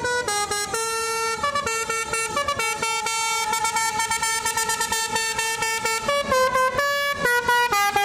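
A tour bus's Basuri telolet multi-tone horn playing a quick tune, several horn tones sounding together and stepping from note to note in rapid succession.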